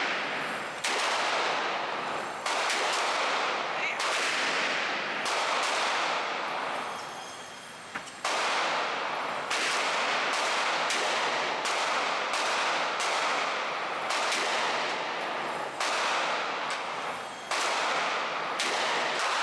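Handgun shots at a shooting range, twenty or more, fired irregularly from about half a second to a second and a half apart, each with a long echoing tail.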